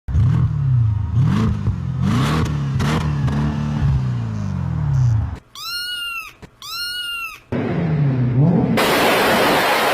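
Car engine revving in repeated blips, its pitch rising and falling, then two short high arching tones, a brief rev, and a loud steady rush of noise near the end.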